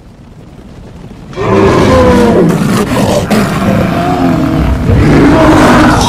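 Cartoon animal stampede sound effect: a low rumble swells, then about a second and a half in a loud din of many animal roars and screeches breaks in over the rumbling and carries on.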